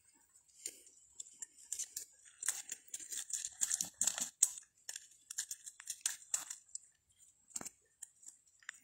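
Dry leaves, twigs and brush crackling and snapping in irregular bursts, with one sharper snap about two thirds of the way through.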